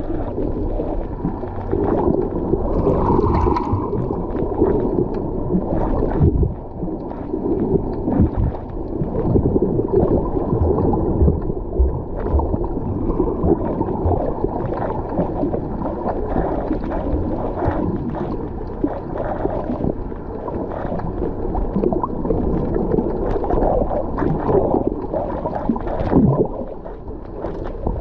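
Muffled underwater rumble and sloshing of water moving around a submerged camera, with faint bubbly ticks; the sound is dull and steady, heard as if through the camera's waterproof housing.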